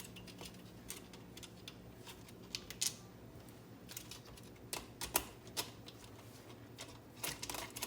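Irregular light clicks and taps of hard plastic parts being handled and unscrewed as a Keurig coffee maker is taken apart, with the sharpest click about five seconds in. A faint steady hum runs underneath.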